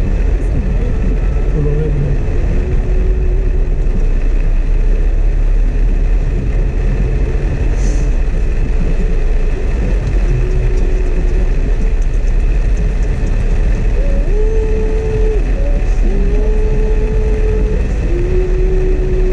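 Cabin noise of a Suzuki S-Presso driving in heavy rain: a steady low rumble from its small three-cylinder engine and tyres on the wet road, under an even hiss of rain on the car.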